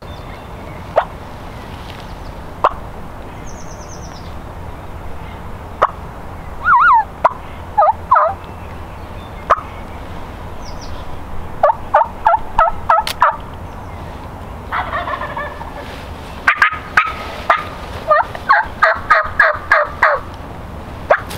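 Wild turkeys calling: two runs of quick yelps, several notes a second, a little past midway and again near the end, with scattered single notes and a short rattling call between them.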